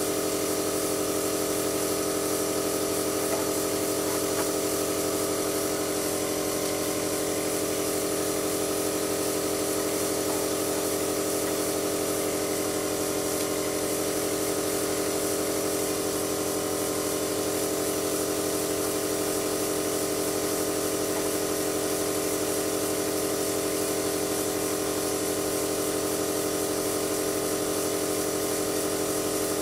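Small airbrush compressor running with a steady, unchanging hum made of several tones.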